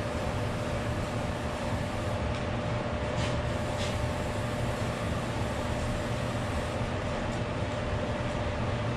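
Forced-air shop heater blowing steadily: a constant low hum with a steady whine over it. Two short aerosol spray-paint hisses come about three and four seconds in.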